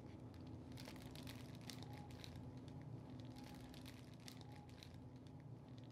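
Faint crinkling of a zip-top plastic bag and light clicks of metal tongs as grouper fillets are laid in the bag, over a faint steady hum.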